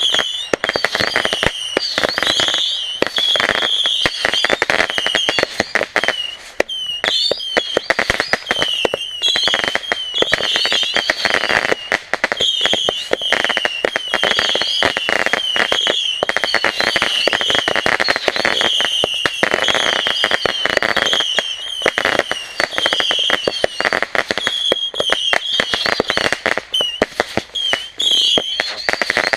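Fireworks going off without a break: dense, rapid crackling pops, with short high chirping glides repeating over and over.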